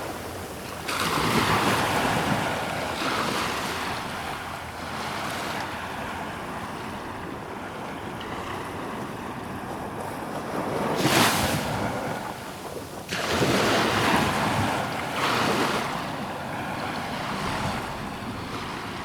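Ocean waves breaking on a shore: several surges of surf crashing and washing in, the sharpest about eleven seconds in, with quieter rushing of water between the breaks.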